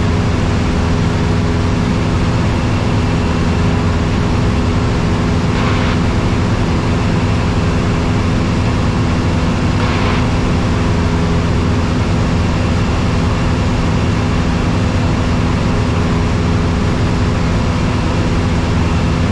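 Single-engine light airplane's piston engine and propeller droning steadily in cruise, heard inside the cabin. Two faint short crackles come about six and ten seconds in.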